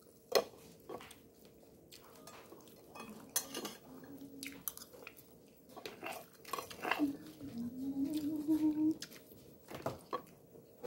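Someone eating roasted fish: quiet chewing and scattered clicks and scrapes of a plastic utensil against a plate. A low, drawn-out, slightly rising tone comes briefly about four seconds in and again from about seven to nine seconds.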